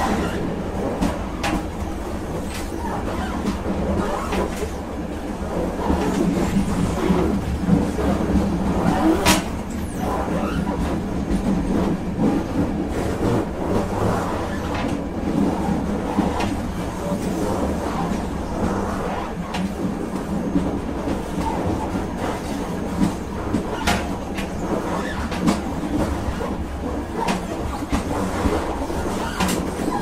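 A moving train running on the rails: a steady low rumble with irregular clicks and knocks, the sharpest about nine seconds in.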